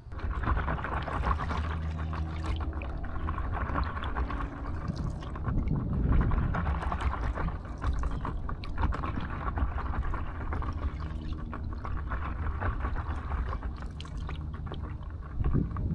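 Water splashing and trickling against the hull of a paddleboard under way, over a steady low rumble.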